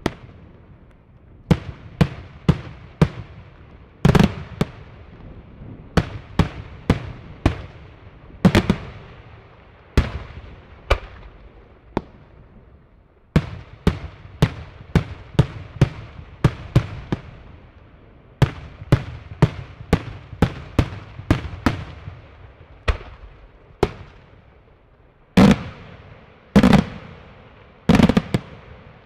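Daytime aerial firework shells bursting overhead in an irregular string of sharp bangs, at times several a second, each trailing off in a short echo. After a brief lull, the loudest reports come near the end.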